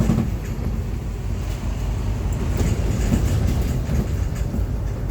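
London bus running along the road, heard from inside: a steady low rumble of engine and tyres with light rattles.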